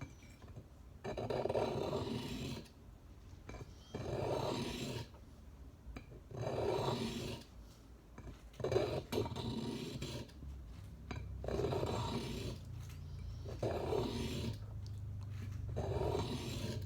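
Swiss Army knife blade being drawn across a medium diamond sharpening stone. It makes a rasping scrape about eight times, one stroke roughly every second and a half.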